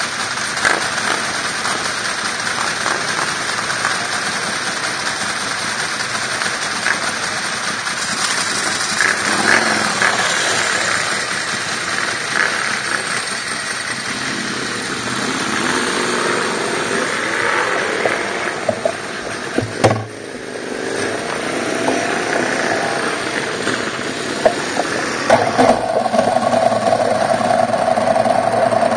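Motor vehicle engine and road noise, steady and continuous. It dips briefly about twenty seconds in, and a steady mid-pitched hum comes in near the end.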